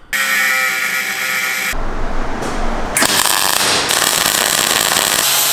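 Metalworking tool sounds, cutting abruptly from one to the next: a power tool running with a steady whine, then a loud hiss, then the steady crackle of a MIG welder laying a weld on a steel bracket, and the steady whine of a power tool again near the end.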